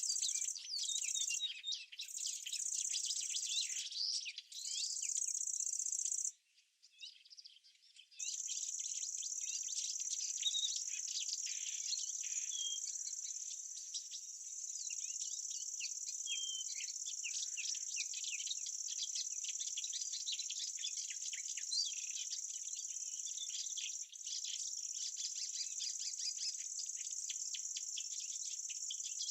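A chorus of summer meadow insects such as crickets, trilling high and steady, with scattered short bird chirps. The trilling stops and starts over the first few seconds, drops almost to silence for about two seconds around six seconds in, then runs on unbroken.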